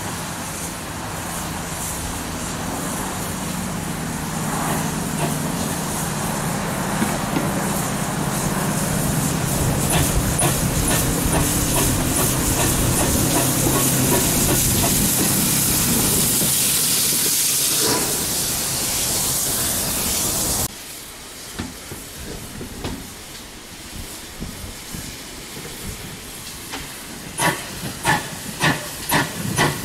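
GWR 0-6-0 pannier tank steam locomotive 6430 running, with steam hissing, growing louder as it comes close. After a sudden cut to a quieter scene, the same engine's exhaust beats start near the end, sharp and regular at about two a second, growing louder as it works.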